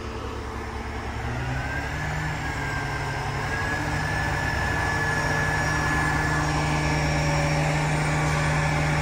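Heavy truck engine pulling under load as the stuck trailer is tugged. The pitch steps up about a second and a half in, and the sound grows steadily louder, with a thin high whine over it.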